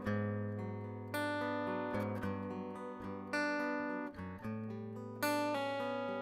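Steel-string acoustic guitar played with a pick, chords struck about every one to two seconds and left to ring, in a calm instrumental passage.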